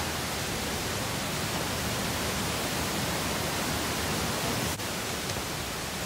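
Steady rush of mountain stream water, an even hiss with no rhythm, broken by one brief click about three-quarters of the way through.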